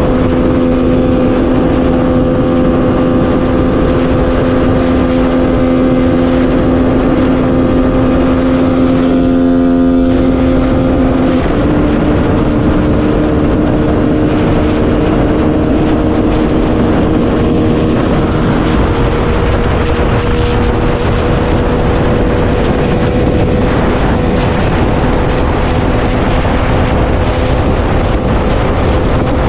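Honda CG 160 single-cylinder motorcycle cruising at highway speed: a steady rush of wind noise over the helmet with the engine's drone underneath. The engine note shifts in pitch about a third of the way through.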